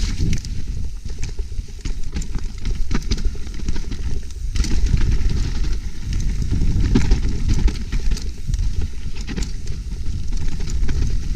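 Trek Slash full-suspension mountain bike descending a rough, sloppy trail: a steady rumble of tyres and wind on the camera microphone, with frequent sharp clicks and rattles from the bike over bumps. The rumble briefly eases about four and a half seconds in.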